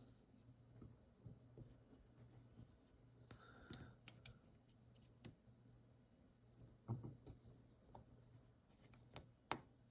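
Faint, scattered clicks and small scrapes of a folding knife's metal parts being handled and fitted back together by hand, with a handful of sharper clicks, two of them close together near the end, over a steady low hum.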